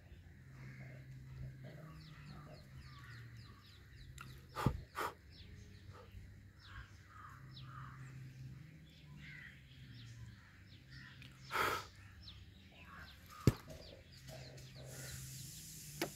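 Outdoor ambience of faint bird chirping over a low hum, broken by a few sudden loud sounds: a double knock about four and a half seconds in, a short loud burst a little before twelve seconds, and a single sharp click about thirteen and a half seconds in.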